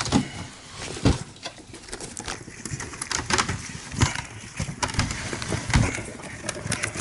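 A crowd of golden hamsters scrabbling and jostling on newspaper bedding: irregular rustling, scratching and small knocks, many a second.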